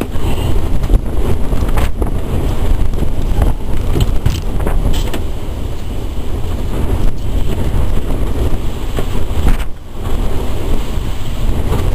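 Wind buffeting the microphone: a loud, uneven low rumble, with a few light clicks from work on the motorhome's front end.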